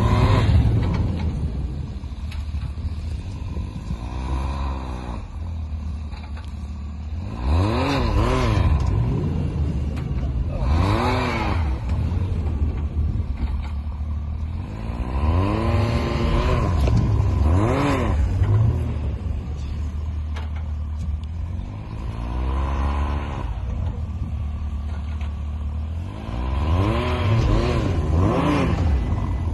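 Engines straining to tow a pickup out of deep snow, heard from inside the pickup's cab: a steady low rumble with about seven runs where an engine revs up and drops back.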